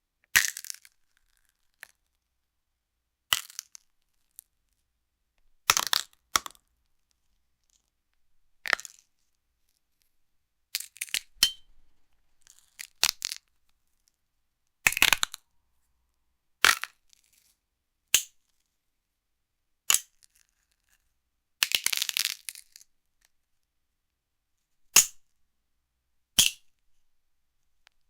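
Bone-breaking foley sound effects: a series of short, sharp cracks and snaps, one every one to three seconds with silence between them. A longer crunching break comes a little after two thirds of the way through.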